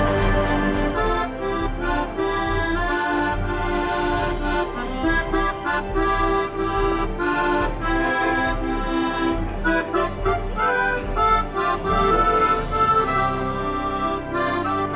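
Accordion playing a tune, coming in about a second in.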